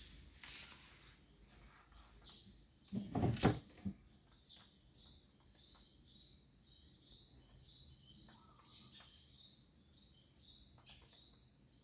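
Small birds chirping repeatedly in the background, short high chirps scattered throughout. A brief loud thump about three seconds in.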